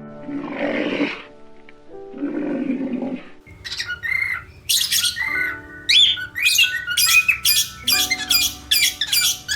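A bird squawking over background music: a run of loud calls about twice a second, starting a few seconds in. A shorter, rougher animal call comes about a second in.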